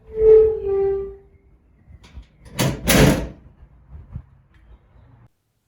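A short two-note falling tone, then a door opening or closing with a whooshing sweep about two and a half seconds in.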